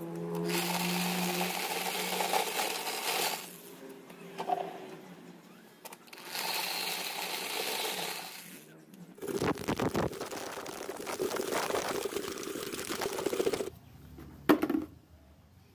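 Electric drill running in three bursts, spinning a corn cob inside a pipe sheller whose screw tips strip off the kernels, which clatter into the plastic bucket below. Near the end comes a single sharp knock as the bare cob is dropped into a plastic bucket.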